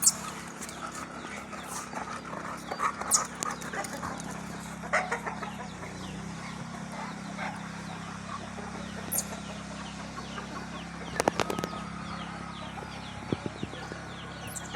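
Chickens clucking in a yard, with scattered knocks and scuffs over a steady low hum. A cluster of sharp clicks comes about eleven seconds in.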